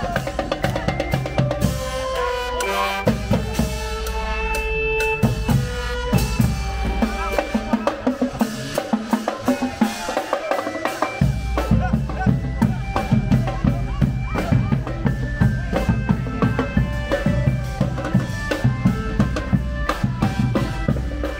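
Thai street brass band (trae wong) playing a lively tune: horns over a steady beat of bass drum and snare drums. The bass drum drops out for about three seconds near the middle, then comes back in.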